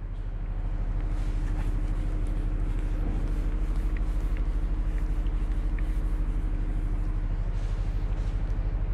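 A steady low hum with a fast, even throb, getting a little louder about a second in, under a few faint ticks and rubbing from a cloth wiping a whiteboard.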